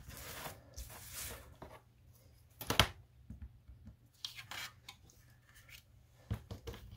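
A pointed marking tool scratching along a steel rule across thin aluminium litho plate, scoring out rivet lines, with one sharp knock a little under three seconds in and a few lighter taps near the end.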